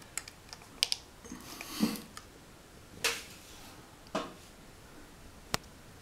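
Plastic housing of an ERA 4S ET exhaust fan being handled and pressed into its wall niche: about half a dozen light, irregular clicks and knocks, the sharpest near the end.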